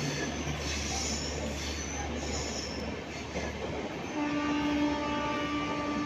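Indian Railways passenger coaches rolling out of the station, their wheels running over the rails with a steady rumble. About four seconds in, a train horn starts and holds one steady tone.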